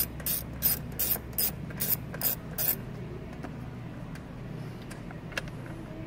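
Quarter-drive ratchet clicking on its return strokes as a 10 mm nut is backed off, at about two or three clicks a second. The clicking stops a little under three seconds in.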